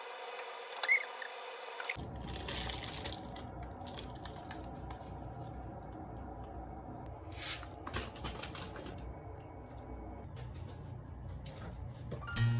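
Home kitchen food-preparation sounds: soft squishing and handling noises with a few short clicks and knocks over a steady low background noise.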